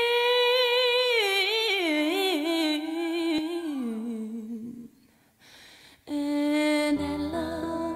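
A woman's voice from a recorded song, singing one long melismatic line with vibrato and no accompaniment, stepping down in pitch over about four seconds. After a brief gap a new held note begins, and piano chords come in near the end.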